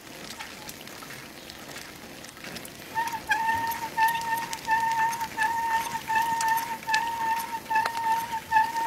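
Bicycle brakes squealing while held on a descent: a steady high squeal that starts about three seconds in and pulses roughly twice a second, over the crackling rumble of tyres rolling on brick paving.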